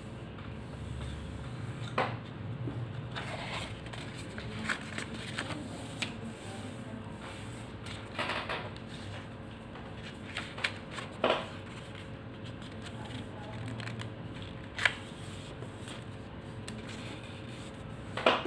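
Paper being folded by hand on a tabletop: soft rustling and sliding as fingers smooth it, with a few short sharp creasing presses and taps spread through, over a steady faint hum.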